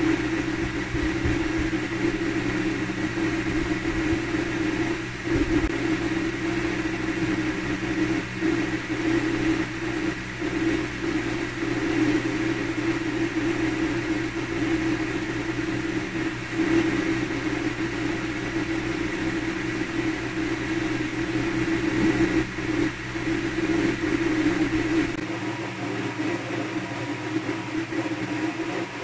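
Steady machine drone: a strong low hum with several constant tones over it. The deepest rumble drops away near the end.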